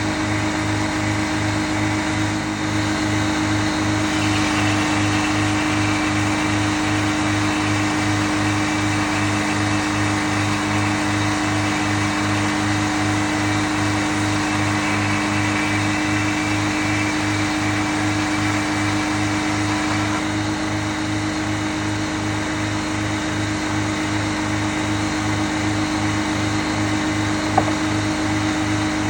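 Frick sawmill running steadily, its motor humming with an even pulse. From about four seconds in to about twenty seconds in, a higher, rougher sound rides over it as the blade cuts through a log, then drops back to the sawmill idling. A single click near the end.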